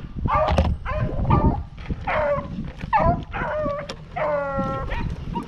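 Rabbit hounds baying in a string of short calls, with one longer drawn-out bawl about four seconds in: the dogs giving tongue as they run a freshly jumped rabbit.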